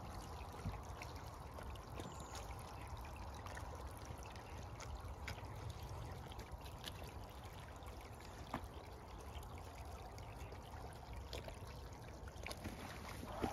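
Shallow water trickling steadily along a small ditch, with scattered faint clicks.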